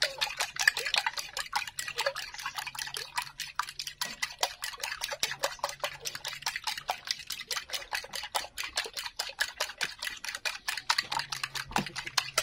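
Raw eggs being beaten by hand in a bowl: the utensil clicks against the bowl in a quick, even rhythm, with the liquid egg splashing.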